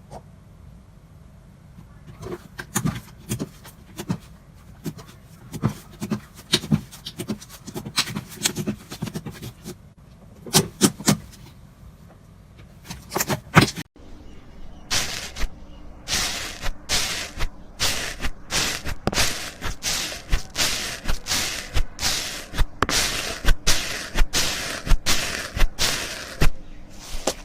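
Slime being poked and squished, making an irregular run of sharp pops and clicks that grows louder and denser after a cut about halfway through.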